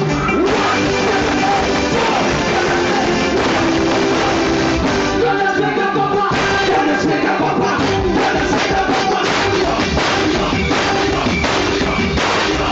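Live band music played loudly over a stage sound system, keyboard and electric guitar with a singer, and drum strokes coming through more clearly in the second half.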